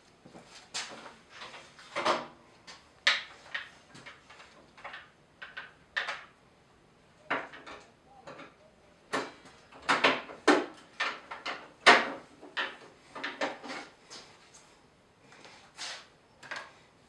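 An irregular series of short knocks, clunks and rattles, like objects being handled and set down, with no motor running. The loudest knocks come about ten and twelve seconds in.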